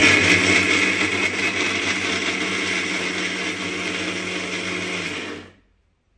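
Greenchef Ripple mixer grinder running, its steel jar grinding peanuts for chutney with a steady motor hum. It starts abruptly and cuts off sharply about five and a half seconds in.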